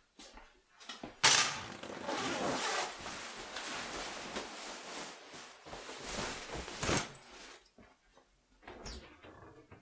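A bunch of keys lands on a kitchen worktop with a sharp clatter about a second in. Several seconds of rustling and handling noise follow, with another sharp knock near the end of it.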